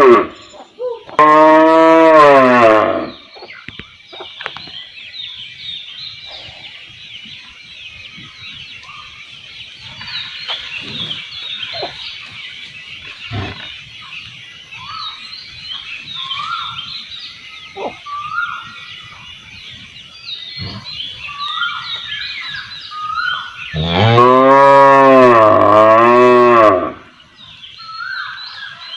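Cow mooing twice: a short loud moo about a second in, and a longer moo near the end whose pitch rises and falls twice. In between, many small birds chirp constantly.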